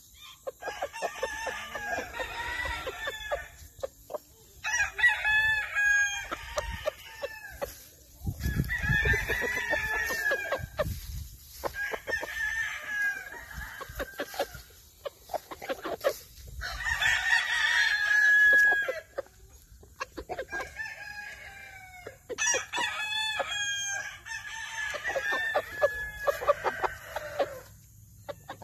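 Gamefowl roosters crowing, one long crow after another, about eight in all with short gaps between.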